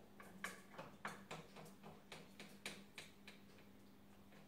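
Knife cutting through the unbaked phyllo top of a chicken pie in a baking dish: a run of light, crisp ticks, about three a second.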